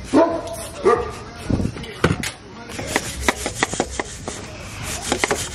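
A stiff brush scrubbing the dirty frame and plastics of a Honda CR85 dirt bike in quick rasping strokes, which begin about halfway through.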